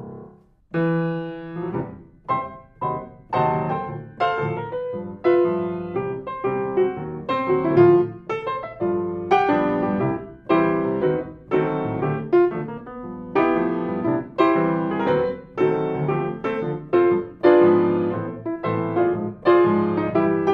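Grand piano playing, notes and chords struck every half second or so, recorded close up by a stereo pair of DPA 4011C cardioid microphones. A chord dies away at the start, and after a short pause the passage begins again.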